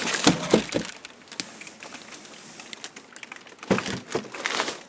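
Handling noise from unpacking a 3D printer: a quick run of sharp knocks and cracks in the first second, then a second cluster of knocks and scrapes near the end.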